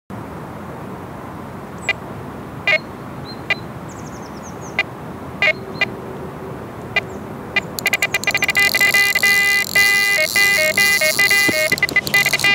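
Electronic carp bite alarms on a rod pod: scattered single bleeps, then from about eight seconds a fast continuous string of beeps at a couple of pitches, the sign of a fish taking line in a run, with a steady hiss joining in.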